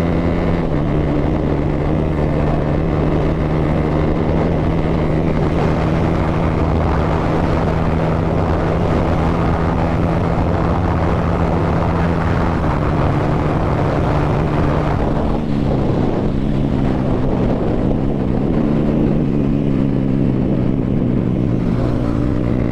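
A Yamaha 155 cc single-cylinder motorcycle engine running under steady throttle while riding, through an aftermarket Akrapovic exhaust with its dB killer removed. The pitch holds nearly level, with a brief dip and a change in note about fifteen seconds in.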